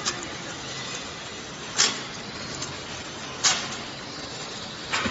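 Vegetable processing line running: a steady mechanical hum from the stainless-steel mesh conveyor and its drive, with three short, sharp bursts about one and a half seconds apart.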